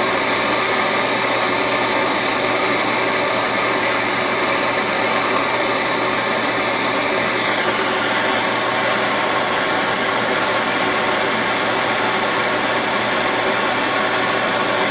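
Gas torch flame hissing steadily as it heats a silver-solder joint on a bandsaw blade.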